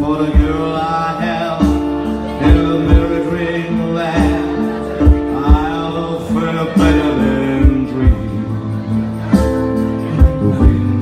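Live acoustic band music: a male voice singing over guitar chords and a steady bass line, with regular low thumps marking the beat.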